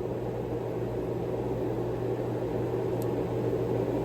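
Steady low mechanical hum with an even background noise, and one faint click about three seconds in.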